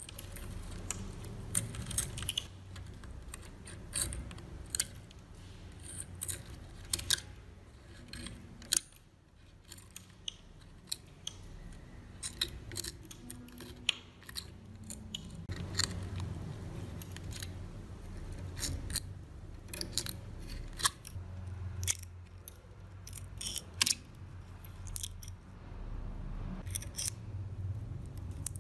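Steel tweezers picking and prying flaky rust scale off a heavily corroded iron sheet cutter: irregular sharp clicks and crackles as the metal tips break off crusty rust.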